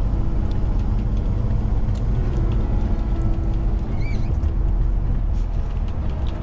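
Engine and road noise heard inside a vehicle cruising on an expressway: a steady low rumble with a steady engine hum under it.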